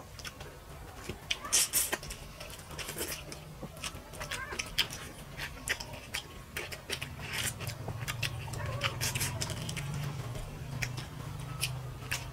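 Close-miked eating by hand: many short wet chewing and lip-smacking clicks while fingers mix rice with fish curry on a plate. A steady low hum runs underneath and grows stronger about seven seconds in.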